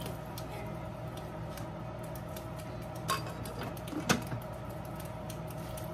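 Long beans and ground meat in a frying pan on the burner, with water just added, simmering with light crackling ticks over a steady hum; two sharper clicks stand out about three and four seconds in.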